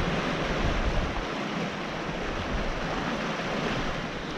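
Sea waves washing in over the shoreline, a steady rushing wash, with wind buffeting the microphone.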